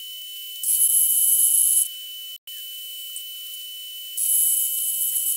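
Metal lathe machining a stainless steel nut blank: a steady thin high whine with two spells of hissing cutting noise, each about a second long, one near the start and one near the end. The sound has no low end at all.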